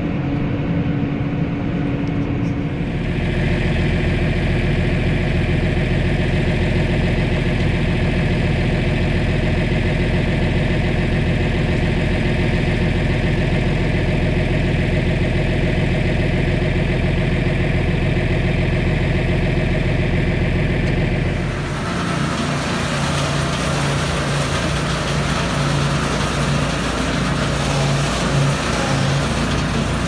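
Farm tractor engines running steadily at constant speed. The engine note changes abruptly about three seconds in, and about twenty-two seconds in it gives way to a rougher, noisier machine sound.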